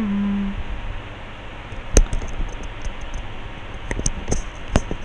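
A brief hummed note from a person, then scattered sharp clicks of computer keys and buttons: one louder click about two seconds in and a quicker run of clicks near the end.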